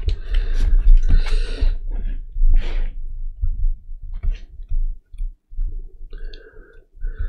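A new deck of oracle cards being shuffled by hand, the cards still sticking together a little: papery sliding and rubbing in bursts with scattered clicks, busiest in the first three seconds and sparser after.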